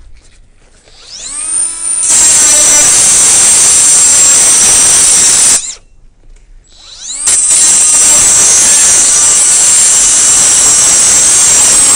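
Milwaukee Fuel cordless cut-off tool spinning up with a rising whine and cutting into the metal earthing strip at a lightning-protection earth rod. It makes two runs: one of about three and a half seconds, a short stop, then a second of about five seconds.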